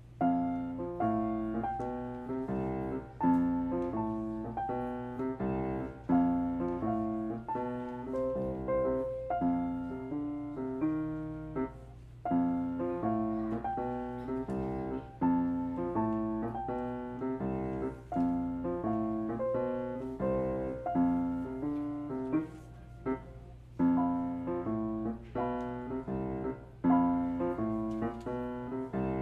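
Steinway grand piano played as a duet: a child plays a simple melody in even, steady notes while a teacher beside him adds a lower accompaniment. The playing pauses briefly twice between phrases.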